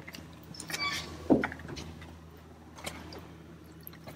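Handling noises of a plastic fuel sampler being worked up against a Cessna 152's wing-root fuel drain: a brief scrape about a second in, then a sharp knock, and a lighter click near three seconds, over a steady low hum.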